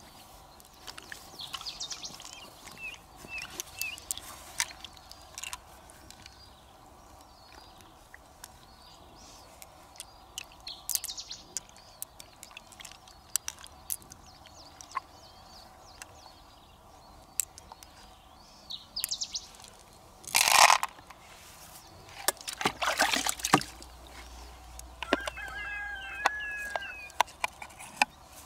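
Rural outdoor sounds: birds chirping and chickens calling, with a rooster-like pitched call near the end, over a faint steady hum. Scattered light clicks of loose pearls being handled in the palm and dropped into a small cup, and a brief louder noise about two-thirds of the way through.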